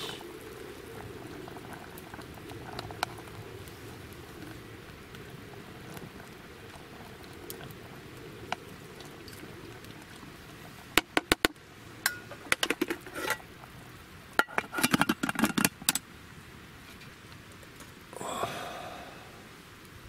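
Liquid simmering in an aluminium mess tin (hangō) over a campfire, then a spoon stirring in the tin, with several bursts of quick clinks and scrapes in the second half.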